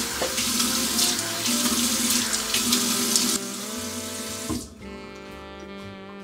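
Bathroom tap running into a sink as water is splashed onto a face, stopping about three and a half seconds in. Background music plays underneath and carries on alone afterwards.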